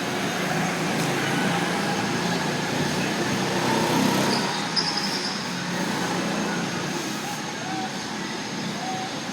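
Steady rushing background noise with faint distant voices.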